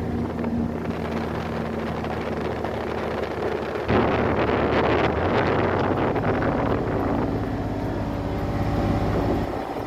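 RTV utility vehicle engine running steadily, getting louder with added rushing noise about four seconds in.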